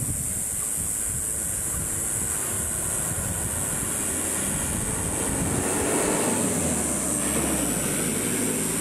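Wind buffeting the microphone outdoors, a steady low rumble that swells a little about six seconds in, over a constant high-pitched hiss.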